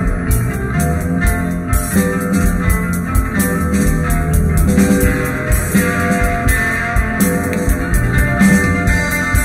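Rock band playing: guitar and bass over a drum kit beat, with no singing.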